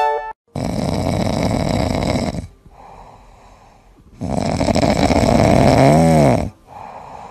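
A sleeping cat snoring loudly. There are two long snores about four seconds apart with a quieter breath between them, and the second snore ends in a brief squeaky rise and fall in pitch.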